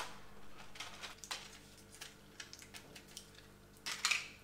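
Faint clicks and crinkles of a small packet being handled and opened by hand, with one louder rustle about four seconds in.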